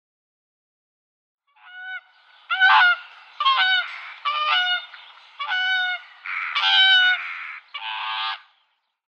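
Swan honking: a series of about seven loud honking calls beginning about a second and a half in, the last one harsher and more rasping.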